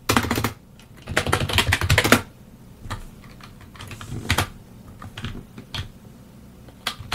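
Computer keyboard being typed on, entering a command line: quick runs of keystrokes in the first two seconds, then single key presses about a second apart.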